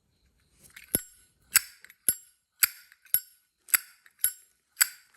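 Solid-brass Zippo lighter's hinged lid flicked open and snapped shut again and again, a sharp metallic clack about twice a second with a brief ring after each, a lid sound the seller calls quite nice.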